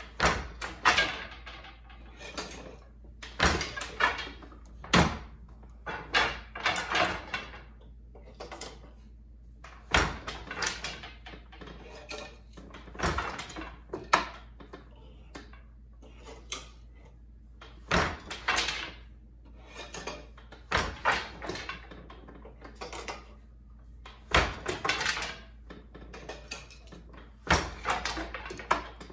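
Wooden Glimåkra Standard floor loom being woven on. The beater knocks the weft into place, boat shuttles slide through the shed and clatter down, and the loom's wooden parts rattle between. This gives an uneven run of sharp wooden knocks a few seconds apart, some in quick pairs.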